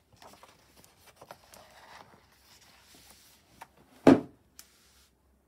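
A paper page of a picture book being turned, with soft rustling. A single sharp thump comes about four seconds in, followed by a light click.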